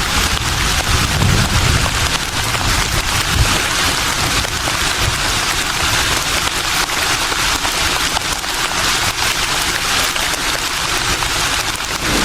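Wind rustling through leaves: a steady, dense hiss with fine crackle, and low gusts rumbling a little near the start.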